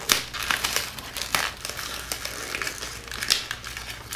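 Gift wrapping paper crinkling and rustling in irregular bursts as a present is pulled open by hand.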